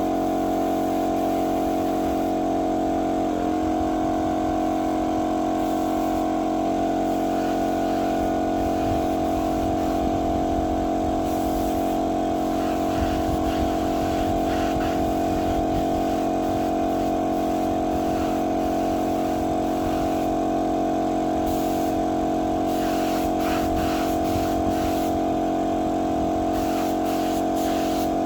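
A motor running steadily with an even hum, its pitch wavering briefly about three seconds in.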